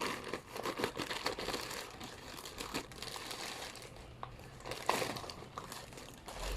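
Plastic packaging crinkling and rustling as a shipped parcel is handled and opened, with a louder crackle about five seconds in.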